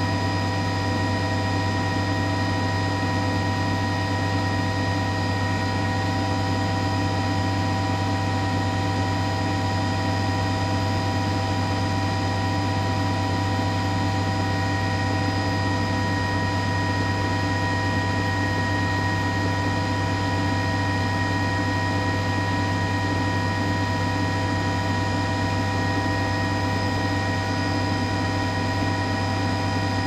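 A steady mechanical drone with several constant tones layered over a strong low hum, unchanging throughout.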